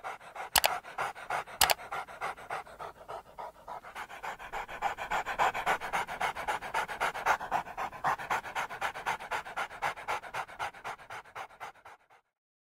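A dog panting rapidly in an even rhythm, swelling and then fading out near the end, with two sharp clicks in the first two seconds.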